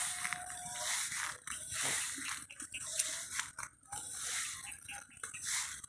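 Young rice plants' leaves rustling and brushing against the phone as it moves through them: a crackly swishing that swells and fades about once a second.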